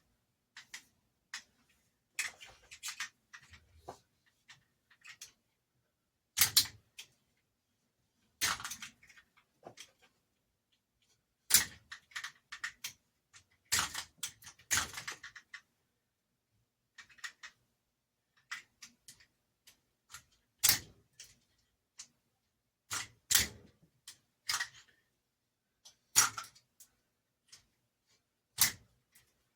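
Hand stripping of scrap copper wire with a blade: irregular sharp clicks and short scrapes as the blade is drawn along the insulation and the wire is handled, with quiet gaps between strokes.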